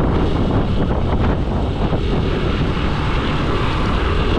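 Steady rumble of a moving vehicle on the road, with wind buffeting the microphone.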